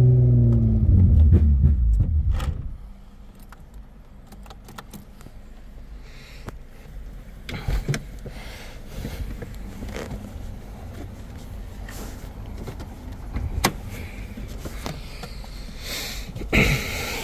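Toyota Camry wagon's engine, held at about 3000 rpm, falls in pitch as the revs drop and then stops about two and a half seconds in. After that there are only light clicks and rattles inside the car, with a louder clatter near the end.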